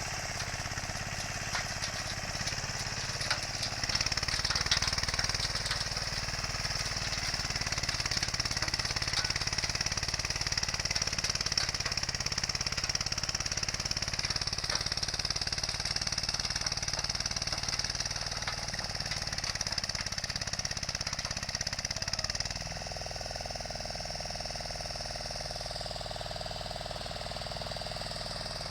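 Small engine of an old Agria walk-behind two-wheel tractor running steadily. It gets louder about four seconds in and drops to a quieter, lower running about 22 seconds in.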